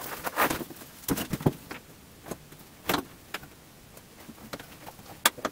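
Irregular knocks, clunks and clicks of someone moving about and handling things, with a close group a little after a second in and a sharp click near the end.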